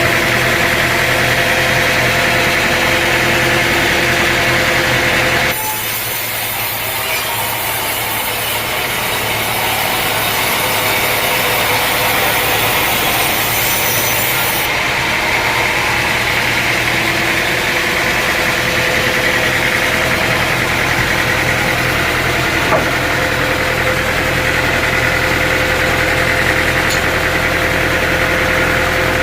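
A sawmill's engine running steadily at an even speed. About five seconds in the sound changes abruptly: the deep part drops away and a high hiss comes in for about nine seconds, then the steady running returns.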